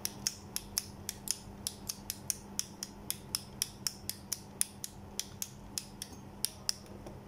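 Torch push-button switch clicking as it is pressed and released over and over, a steady run of about four sharp clicks a second. The switch now works freely, with a screw and washer standing in for its broken plastic pusher.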